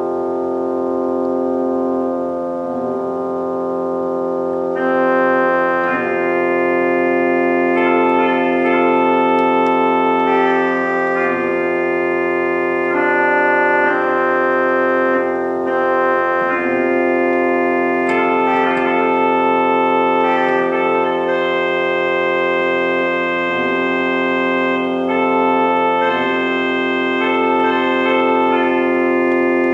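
Organ playing slow, sustained chords; a higher melody line of held notes joins about five seconds in.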